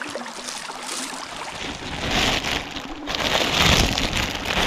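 A rushing outdoor noise that is quiet at first and swells twice in the second half.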